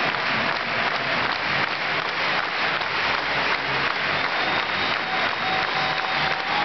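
Large crowd in a packed basketball arena applauding steadily.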